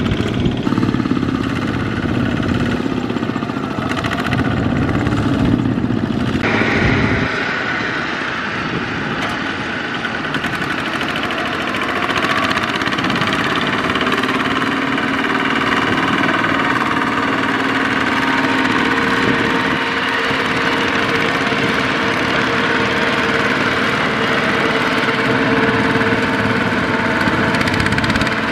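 Kubota ZT155 single-cylinder diesel engines on two-wheel walking tractors, running steadily while pulling a trailer through deep mud. The sound changes abruptly about six and a half and twelve seconds in.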